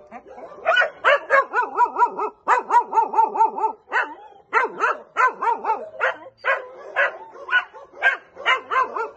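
A dog barking again and again in short, high, excited calls, many drawn out into a wavering whine.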